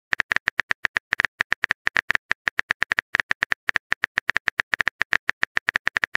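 Texting Story app's keyboard typing sound effect: a fast, even run of short clicks, about eight a second, as a message is typed out.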